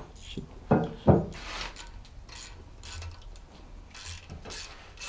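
Ratchet spanner tightening bolts: two knocks about a second in, then a run of short ratchet clicks about twice a second as the handle is swung back and forth.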